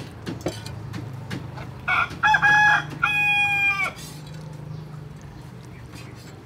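A rooster crows: a broken run of short notes about two seconds in, then one long held note that drops away just before four seconds in. A few light knocks of a cleaver on a wooden chopping block come before and after the crow.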